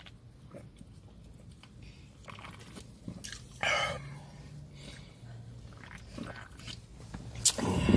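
A man drinking soda from an aluminium can: wet gulping and swallowing mouth sounds in two spells. There is a short loud breathy burst about halfway and a louder one near the end.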